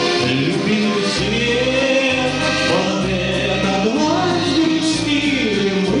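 A man singing a slow waltz to his own accordion, his voice holding long, gliding notes over the accordion's sustained bass and chords.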